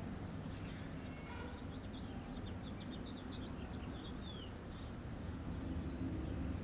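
Small birds twittering: a quick run of short, high chirps lasting about two seconds midway, ending in a falling note, over a steady low outdoor rumble.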